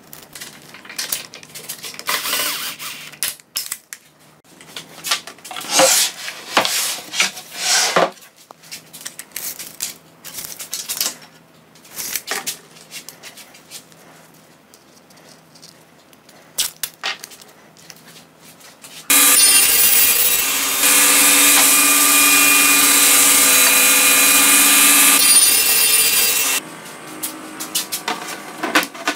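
Workshop handling of chipboard cabinet parts: scattered knocks, clicks and scraping strokes. About two-thirds of the way in, a power tool's motor starts and runs loudly and steadily for about seven seconds, then cuts off.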